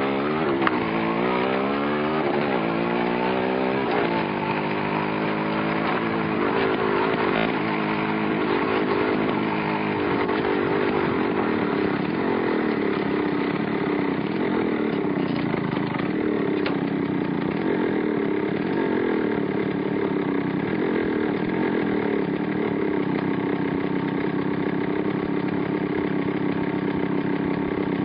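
Yamaha RX100 two-stroke single-cylinder motorcycle accelerating through the gears, its engine note rising and then dropping with each shift for about the first ten seconds. After that it runs on at a steady, fairly high pitch.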